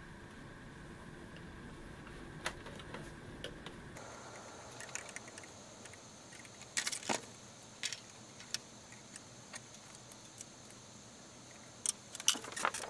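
Scattered light clicks and taps of metal tweezers and hands on a plastic Xyron sticker maker as small paper pieces are pushed into it, with a cluster of sharper clicks about seven seconds in and another near the end.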